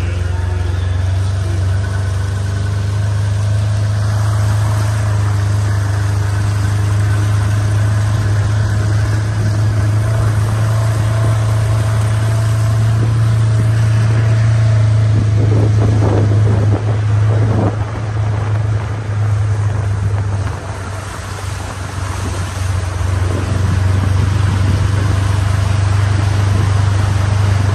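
A vehicle running with a steady low hum as it moves slowly, with a few brief rough noises about fifteen to eighteen seconds in.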